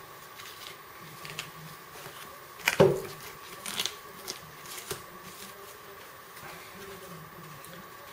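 Handling noise of a fabric digger holster and its stainless-steel digger: soft rustles and scrapes, with one sharp knock just under three seconds in, over a faint steady high hum.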